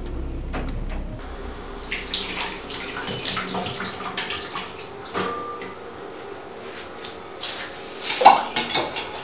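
Water running in a kitchen sink with dishes and pots clinking and clattering, and one louder clatter near the end.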